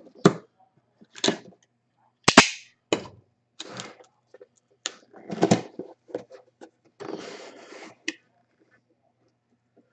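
Sharp snaps and crackles of a sealed memorabilia box being opened, seals popping and packaging handled. The loudest snap comes about two seconds in, and a short stretch of rustling follows near the end.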